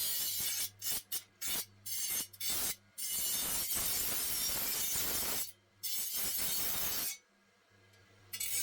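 Continuous rasping and scraping of a hand tool worked against the workpiece, stopping abruptly several times, with a faint steady hum beneath.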